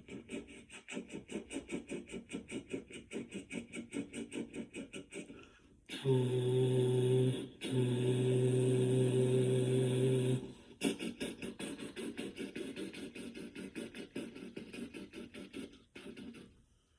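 A man imitating a railroad train with his mouth: fast rhythmic chugging, then a loud, long held horn call broken once, then the chugging again.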